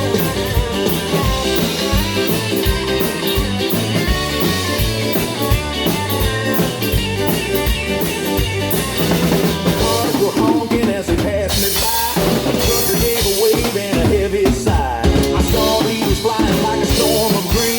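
Instrumental break of a 1950s-style rockabilly song: a drum kit playing a steady beat with rimshots under electric guitar.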